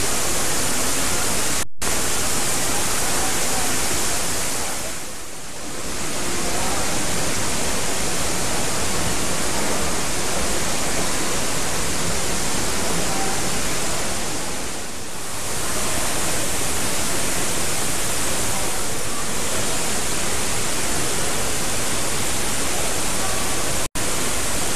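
Steady loud hiss, even from low to high pitch. It dips briefly twice and cuts out for an instant twice.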